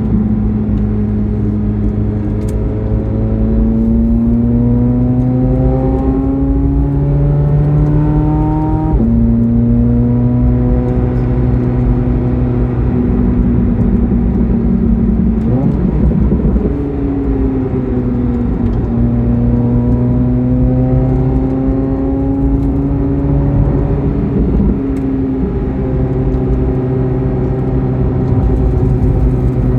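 Chevrolet Corvette C8 Z06's flat-plane-crank V8 under way, its revs climbing slowly and dropping with gear changes, the sharpest drop about nine seconds in. Steady road and tyre noise runs underneath.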